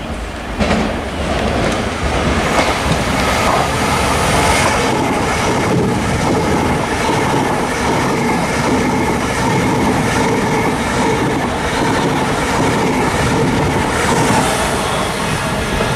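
Thameslink Class 700 electric train running past close along the platform: a steady rumble and rush of wheels on rail that swells about half a second in, with repeated clicks as the wheels cross rail joints.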